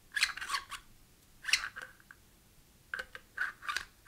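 3D-printed plastic saber chassis scraping and squeaking against the inside of a metal lightsaber hilt as it is pushed in, in several short bursts.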